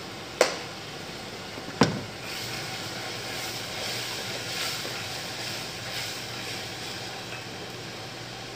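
Two sharp knocks about a second and a half apart, then a long spoon stirring and scraping in a stainless-steel pot of cooking tomato mixture, with a stroke about every half second to second, over a steady hiss.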